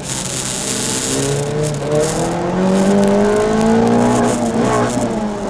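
Peugeot 306 Rallye's four-cylinder engine heard from inside the cabin under hard acceleration, its revs climbing steadily. Near the end the pitch drops with a gear change and starts climbing again.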